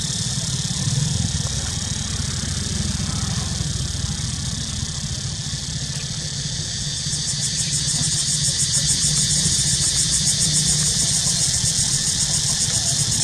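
Steady outdoor background: a high, shrill buzz that takes on a fast, even pulse and grows a little louder about seven seconds in, over a low steady hum.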